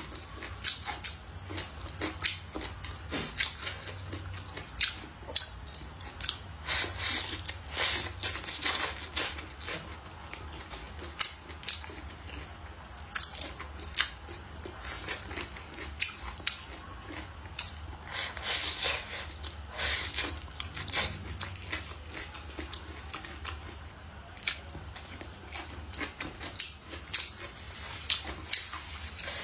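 Close-miked chewing and biting of stir-fried meat and green peppers, with irregular wet clicks and crunches from the mouth.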